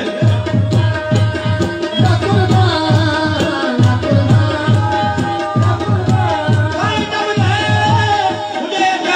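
Live qawwali music: a hand drum beats a steady rhythm about twice a second under harmonium and singing voices.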